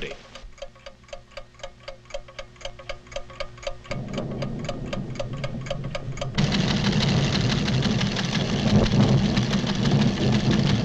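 Cartoon sound effect of a seismograph ticking steadily, about five clicks a second, with a low hum coming in about four seconds in. About six seconds in, a loud low rumble takes over, the sign of the volcano's tremors.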